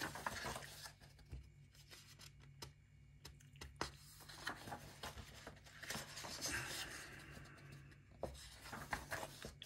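Pages of a paperback colouring book being turned by hand: soft paper rustling and brushing with a few light flicks as several pages are turned in turn.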